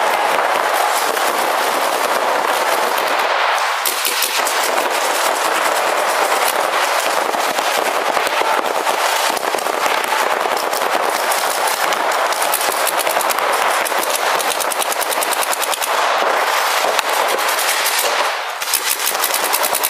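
Several paintball markers firing in rapid strings, the shots running together into a continuous rattle, with a brief lull near the end.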